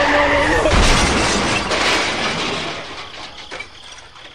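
A loud crash with a low thump about a second in, fading away over the next few seconds, as the toy tractor and its watermelon trolley overturn into the muddy ditch.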